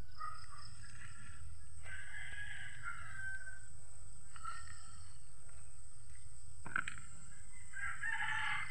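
A rooster crowing twice, once about two seconds in and again near the end, with a couple of shorter calls between.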